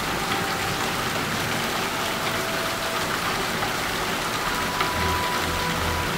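Steady heavy rain falling, an even dense hiss.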